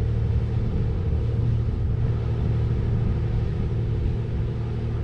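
Paddlewheel riverboat's engine running, a steady low rumble with an even hum that does not change.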